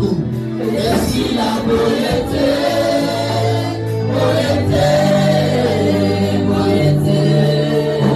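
Gospel worship music: a choir or congregation singing over a band with bass and percussion.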